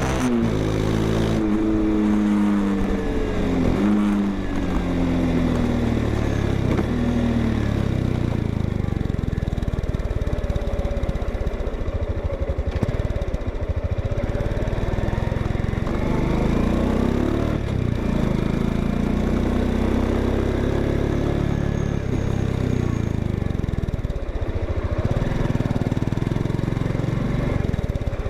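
Honda XRE 190 motorcycle's single-cylinder engine and exhaust running, its pitch falling back from a rev over the first few seconds and rising and falling again later on.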